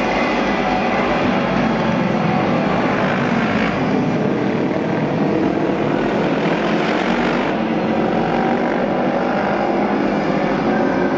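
Japanese Auto Race motorcycles, 600cc parallel-twin racing machines, running flat out as a pack laps the oval track. The engines make a loud, steady, dense noise that swells a little around the middle.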